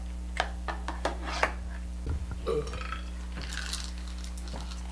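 Tableware sounds at a breakfast table: several light clicks of cutlery against dishes, a short low sound about two seconds in, and a brief rustle a little later, over a steady electrical hum.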